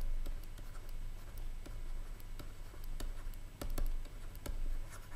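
Stylus writing on a tablet screen: an irregular run of small taps and scratches as words are handwritten.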